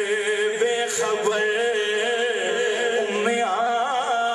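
A man's voice singing a naat, drawing out long held notes that waver up and down in pitch.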